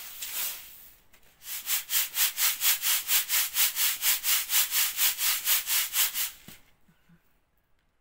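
Dried bulgur wheat swishing in a wooden-rimmed sieve shaken back and forth by hand to sift it clean. It is a rhythmic hiss of about four to five strokes a second that starts after a softer rustle and stops about six and a half seconds in.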